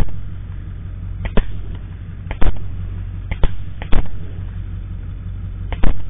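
A volley of rifle shots from several hunters firing at a hog: about six sharp cracks at uneven intervals, each dying away quickly, over a steady low rumble.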